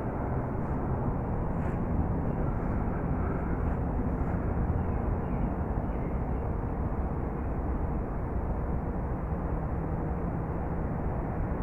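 Steady low outdoor background rumble, even throughout, with a couple of faint brief ticks in the first few seconds.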